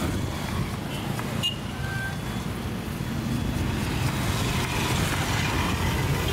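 Steady road-traffic rumble, with quick knife taps of shallots being chopped on a plastic cutting board.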